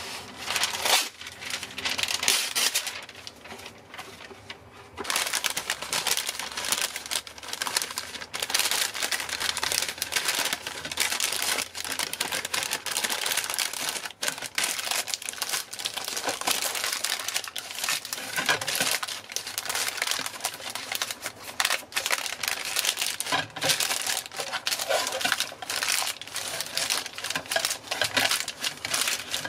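Baking paper crinkling and rustling as hands crumple it and press it into a round metal cake tin, with a quieter lull about four seconds in.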